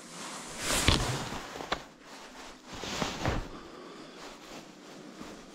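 Soft rustling and handling noise of clothing and fishing gear close to the microphone, in a few short swells, with a light click just under two seconds in.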